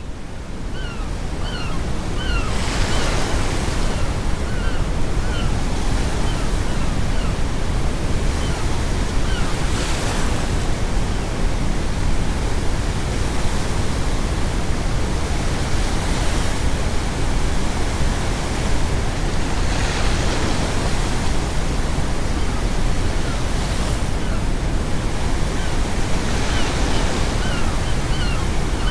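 Ocean waves breaking every few seconds over a steady, deep brown-noise hiss, fading in over the first two seconds. Seagulls call in quick series near the start and again near the end.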